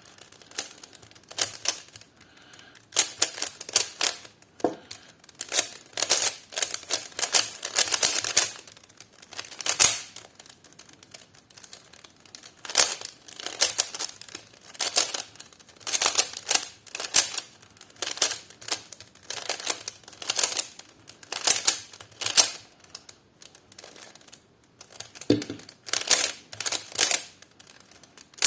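A fast-turning 3x3 speed cube being solved by hand: bursts of rapid plastic clicking as its layers are turned, with short pauses between the bursts.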